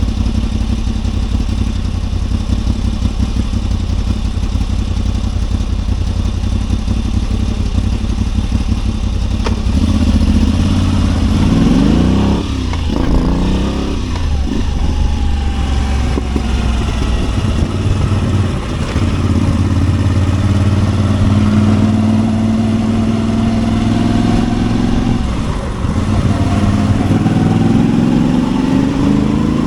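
Moto Guzzi V85TT's air-cooled transverse V-twin running through a Mistral conical aftermarket silencer: a steady idle for about the first ten seconds, then the engine pitch rising and falling several times as it is revved or pulls away through the gears, rising again near the end.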